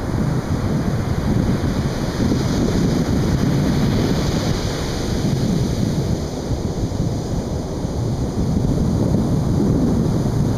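Atlantic Ocean surf washing onto a beach, a continuous rushing hiss that swells briefly about four seconds in, with wind buffeting the microphone as a low rumble underneath.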